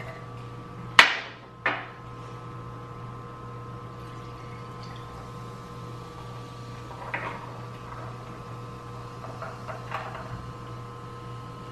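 Two sharp clunks of glass on a hard tabletop about a second in, the first the loudest, then drinks poured from glass bottles over ice into a glass in two short bursts.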